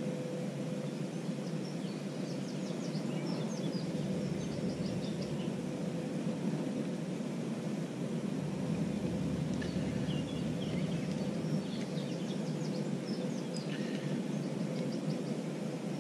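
Outdoor woodland ambience: a steady low hum of background noise, with small birds chirping in two spells, a few seconds in and again from about ten seconds on.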